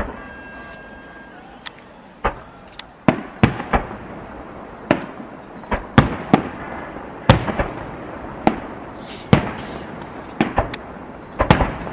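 Aerial firework shells bursting in an irregular run of sharp bangs, well over a dozen in twelve seconds, each trailing off in a short echo.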